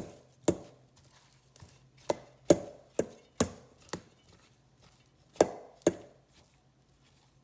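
A big kitchen knife chopping boiled, peeled potatoes in a pan, the blade striking down through them onto the pan's bottom. About nine sharp knocks come in uneven clusters with pauses between.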